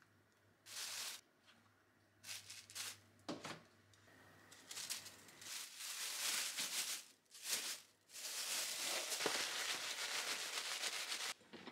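Thin plastic bag rustling and crinkling as it is handled and shaken to coat horse mackerel pieces in flour. A few short rustles come first, then a longer stretch of steady crinkling from about halfway in until near the end.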